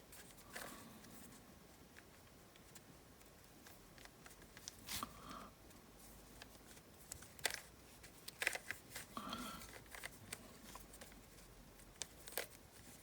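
Faint, scattered plastic clicks and scrapes of a modified 3x3 puzzle cube being turned and handled, a bandaged cube with some of its pieces glued together.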